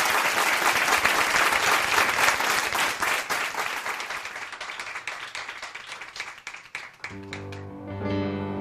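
Audience applause that dies away over about seven seconds. Just after that a Korg electronic keyboard starts an introduction with held chords.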